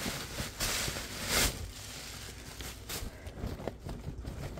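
Gift wrapping rustling and crinkling as a present is handled and pulled open by hand, with a couple of louder rustles about a second in.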